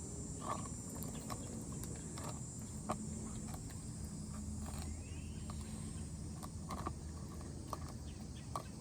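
Outdoor background: a steady high insect-like buzz over a low hum, with scattered faint clicks and small handling sounds.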